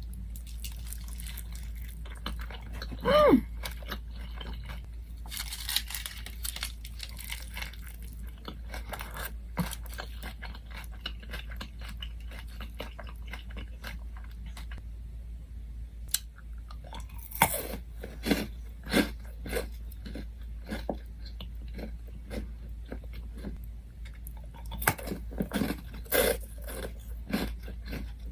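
A person eating close to the microphone, mukbang-style: irregular chewing and biting with crisp, crunchy bites and wet mouth clicks, growing busier in the second half. A short falling vocal sound comes about three seconds in.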